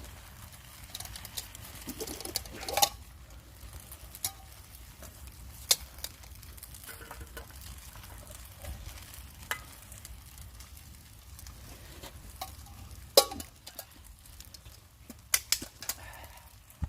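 Sauce reducing and sizzling in a pan over a campfire, with a utensil stirring it and knocking sharply against the pan several times.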